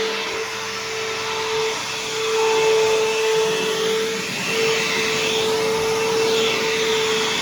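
Bissell CleanView Helix bagless upright vacuum cleaner running steadily, its motor holding a steady hum over the rush of suction, with a brief break in the hum about four seconds in.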